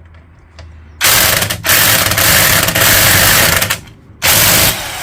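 Impact wrench hammering on rusted bolts: a long burst of almost three seconds starting about a second in, then a short burst near the end. The hammering is cracking the rusty bolts loose, shaking rust dust off them.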